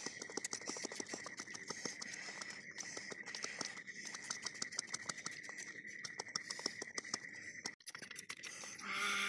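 A knife slicing vegetables held in the hand: a rapid, irregular run of small crisp clicks as the blade cuts through, over a steady high chirring of night insects.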